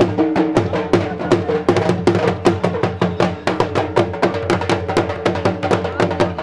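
Punjabi jhumar folk music: quick, even drum strokes over a steady, held melodic line.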